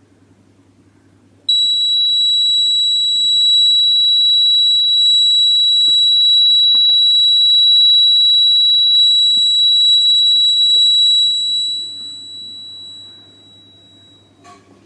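A homemade fire alarm's horn-type buzzer sounds a continuous high-pitched electronic tone, set off by heat from a flame closing its circuit. It starts abruptly about a second and a half in, holds steady for about ten seconds, then fades away. A small click follows near the end.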